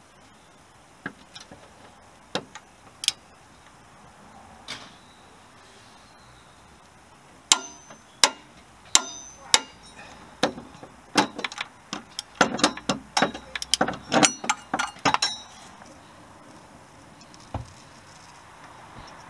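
Ratchet torque wrench on the crankshaft pulley bolt clicking as the bolt is tightened. A few sharp metallic clicks come early, then a quicker, denser run through the middle that stops a few seconds before the end.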